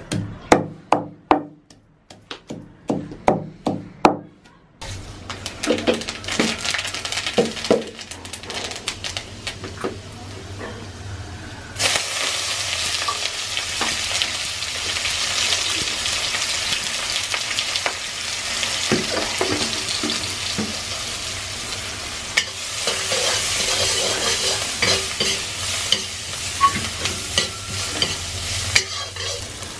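Wooden pestle pounding spices in a wooden mortar, a quick run of about ten dull strikes. Then onions frying in oil in an iron wok, a sizzle that grows suddenly louder about twelve seconds in, with a metal ladle scraping and stirring.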